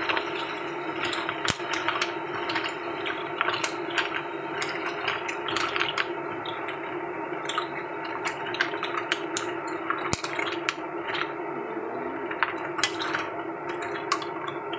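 Green mussels in their shells being stirred with a wooden spatula in a hot wok: frequent sharp clacks of shell against shell and against the pan, over a steady sizzle.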